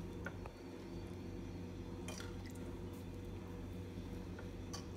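A steel spoon drizzling a lemon-and-sugar tempering liquid over dhokla on a plate: a few faint drips and light clicks, the clearest about two seconds in, over a steady low hum.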